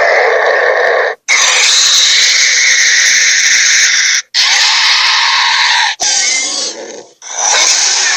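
Dragon roar and growl sound effects: harsh, breathy creature vocalizations played back to back as separate clips that cut off and start again abruptly, about a second, four, six and seven seconds in. The clip about six seconds in is quieter and tails away.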